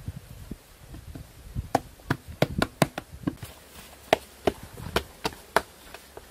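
Sharp knocks of a hand tool striking the hard clay wall of a freshly dug pit: an irregular run of about a dozen quick strikes from about two seconds in until near the end, over low scuffing of soil.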